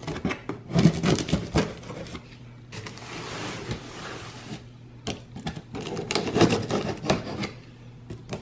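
A small folding knife cutting the packing tape on a cardboard shipping box: clusters of scraping and clicking, with a steadier rubbing stretch in the middle.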